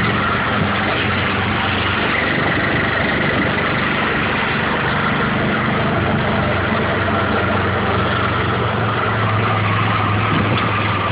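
Engine of a three-wheeled motor-taxi running steadily at an even pitch as it drives along, heard from inside the open cab.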